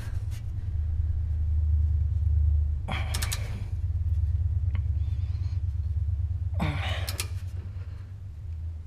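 Two heavy exhales of effort, about three and seven seconds in, from a man straining under a truck, over a low steady rumble.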